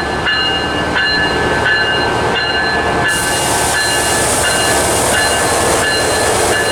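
Coaster commuter train pulling slowly out of the station, a bell ringing about every 0.7 s over the low rumble of the train. A steady hiss comes in about three seconds in.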